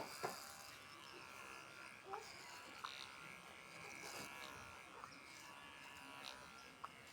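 Electric hair clipper running with a faint, steady buzz during a haircut, with a few soft clicks.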